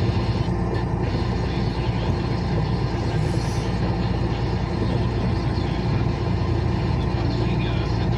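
Steady engine and tyre noise heard from inside the cab of a vehicle cruising along a wet highway, a constant low drone with no change in pace.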